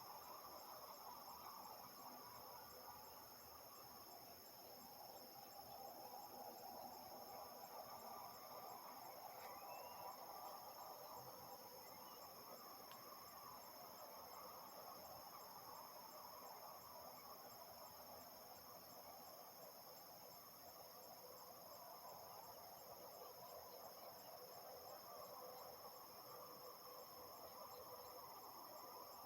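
A steady, high-pitched evening chorus of crickets and other insects, several tones held without a break. Underneath lies a faint distant hum of harvest machinery.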